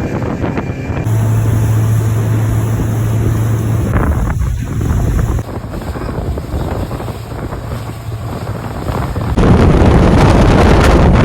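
Motorboat engine running under way, with wind buffeting the microphone. The sound jumps louder and rougher about nine seconds in.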